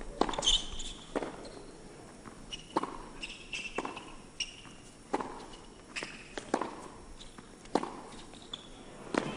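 Tennis rally on an indoor hard court: sharp racket strikes and ball bounces about once a second, with short high shoe squeaks as the players move.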